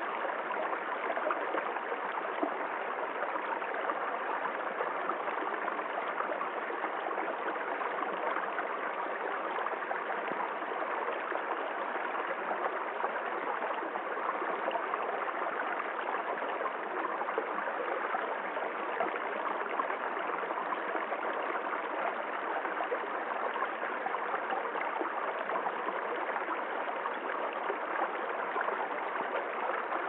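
Small shallow forest stream rippling over stones and splashing down a low rock step into a pool, steady and unchanging.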